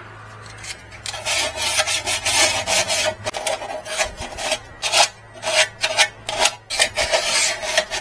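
Hand filing: rapid back-and-forth rasping strokes, about two or three a second, starting about a second in. A sharp edge is being filed smooth.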